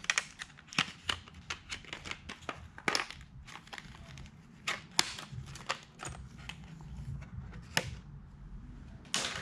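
Small retail package for a motorcycle security seat screw being opened by hand: an irregular run of sharp clicks and crinkles of packaging, with a longer rustle near the end.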